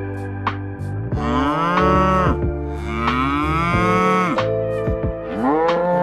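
Cattle mooing: several long, overlapping moos that rise in pitch, hold, then fall away.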